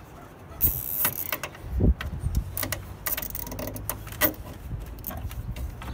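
Cable ties being pulled tight through their ratchets: short zipping rasps about a second in and again around three seconds in, among scattered clicks and knocks of handling.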